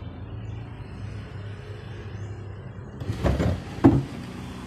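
A drawer sliding, then knocking against its stop with a sharp bump about four seconds in, over a steady low hum.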